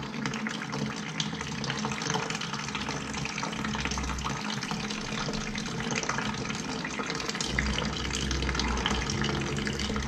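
Water running from the drain valve under a steam boiler's float-type low-water cutoff and splashing into a bucket, a steady pour with small splashes. This is a flush to clear mud from cutoff piping that seems partly plugged.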